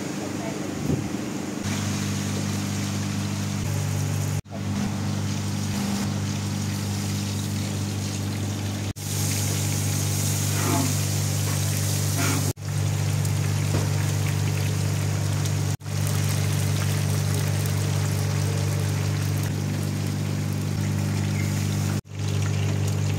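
Hot oil sizzling and bubbling as food deep-fries, the sizzle strongest in one stretch around the middle. A steady low hum runs underneath, and the sound breaks off briefly several times.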